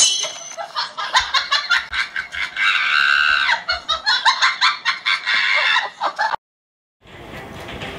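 Chicken clucking in a quick run of short clucks, with a longer held call about three seconds in, cutting off suddenly about six seconds in. It is a dubbed comic sound track; no bird is in the picture.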